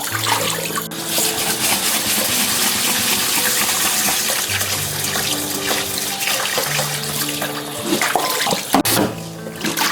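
Water running from a tap into a sink in a steady rush that stops near the end, over background music with long held notes.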